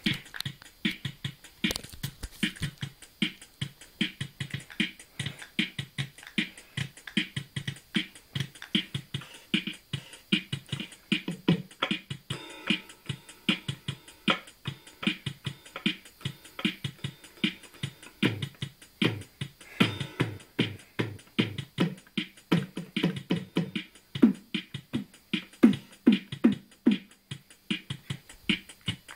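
Yamaha DD-10 drum machine sounding its electronic drum voices from its built-in speaker as its pads are struck by hand: a fast, unbroken run of short kick, snare and cymbal-like hits.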